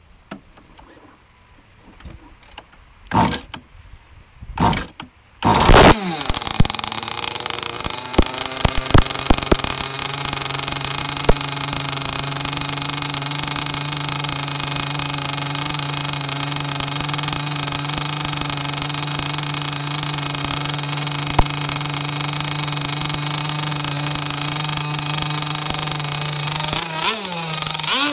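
The motor of a Staufenbiel F1 RC racing catamaran starts with a few short bursts, then runs at a steady pitch for about twenty seconds. Its pitch wavers near the end.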